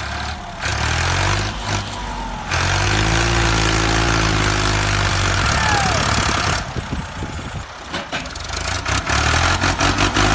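A vehicle engine running steadily, louder and rougher from about two and a half to six and a half seconds in.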